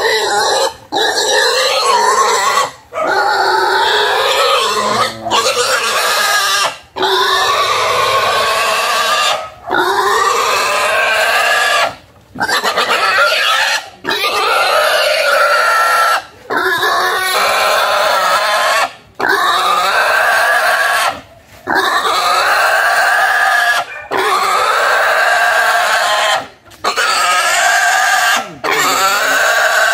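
Young pig squealing loudly in long distress cries of about two seconds each, broken by brief pauses for breath, as it is pinned down and its legs are tied with rope.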